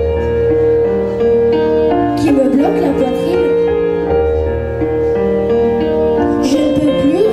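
Music: slow held keyboard chords, with a singing voice coming in twice.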